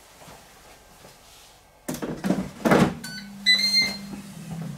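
Dual-basket air fryer: its basket drawer is shut with two thunks about two seconds in, then the control panel gives a few short beeps as it is set, and the fan starts up with a steady low hum.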